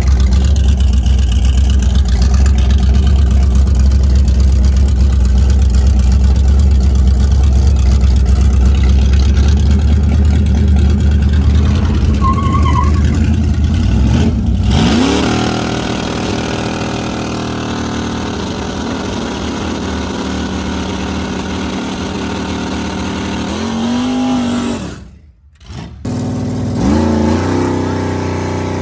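Car engines running with a deep, steady rumble. Then a single engine idles and is revved three times, its pitch climbing quickly each time before falling back.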